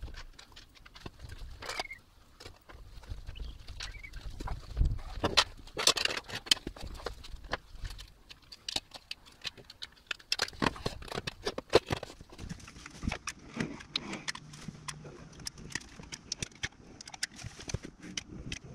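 Irregular clicks, taps and knocks of hands working with tools and a caulk gun while sealing the seams of FRP shower wall panels, with a few heavier thumps around the middle.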